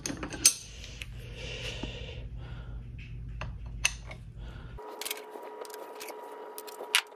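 Aluminium tube dowels clinking and knocking against each other and the aluminium transmission case as they are picked up and slid into its bolt holes, with a sharp clack about half a second in. Partway through, a steady faint hum with a thin whine comes in under further light clicks.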